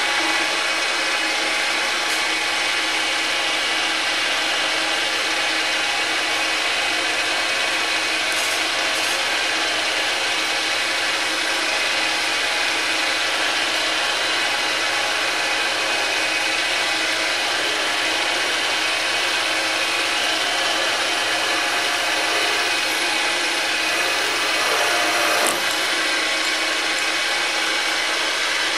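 Milling machine spindle running steadily, a continuous mechanical whir with many steady whining tones, while a number 2 centre drill is fed into a metal part to start a hole.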